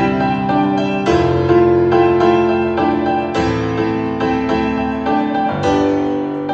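Piano music playing from a Bang & Olufsen wireless speaker under test, with sustained notes and fresh chords struck about a second, three seconds and five and a half seconds in.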